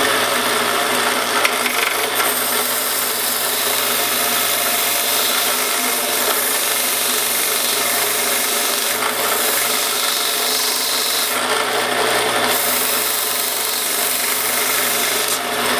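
Power tool running steadily while sanding a metal motorcycle bar-end weight, a continuous rasping grind over a low motor hum. It starts abruptly.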